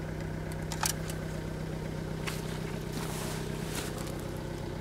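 An engine idling steadily, with a few soft rustles in the grass.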